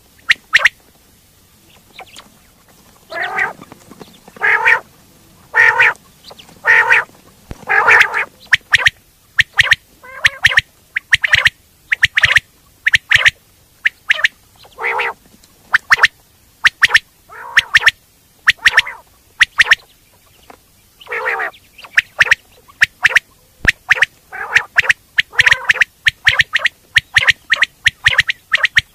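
Common quail calling: a long run of short repeated notes, some lower and rasping, others sharp and thin. The notes are sparse for the first few seconds, then come thick and fast.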